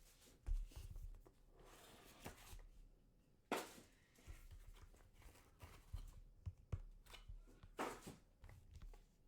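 Trading card box and its packaging being handled and opened: intermittent faint rustles, crinkles and light taps of cardboard and plastic, with the clearest bursts about half a second, three and a half, and eight seconds in.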